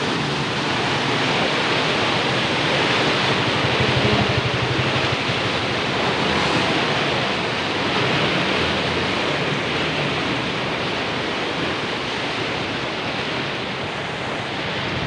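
Fast, flood-swollen river water rushing under a steel bridge: a steady, even rush of water with no breaks.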